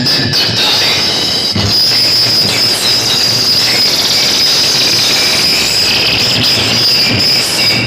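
Loud, steady, high-pitched screech over a dense noisy wash, played through a DJ loudspeaker sound system being sound-checked.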